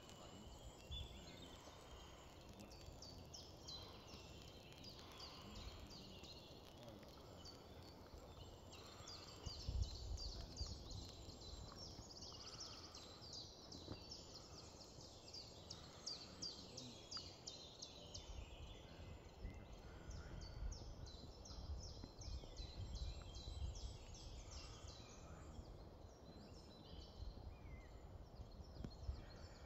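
Faint woodland birdsong: quick high chirps and trills repeated densely through most of the stretch over a low steady hiss. A low rumble comes about a third of the way in and again later.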